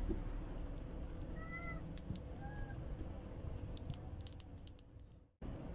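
An animal gives two short pitched calls about a second apart over steady low background noise. A few light clicks follow, then the sound drops out suddenly for a moment near the end.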